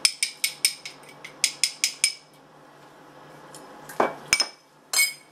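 A utensil clinking rapidly against a mixing bowl while stirring thick, stiffening powdered-sugar icing: about four sharp, ringing clinks a second for two seconds. Then two knocks about four seconds in and a short clatter near the end.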